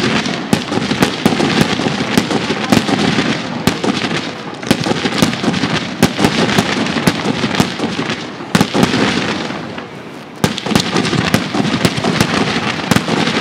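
Fireworks display: many sharp bangs in quick succession over continuous crackling, with a short lull about ten seconds in before the bangs pick up again.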